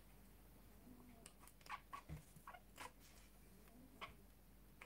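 Near silence, with a few faint clicks and scrapes of a kitchen knife cutting the base off a matsutake mushroom on a plastic cutting board.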